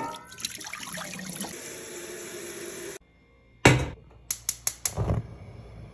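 Tap water running into a stovetop kettle, its pitch rising slightly as the kettle fills. After a break, a loud clunk as the kettle is set on a gas hob, four quick ticks of the burner igniter, and a short soft whoosh as the burner lights.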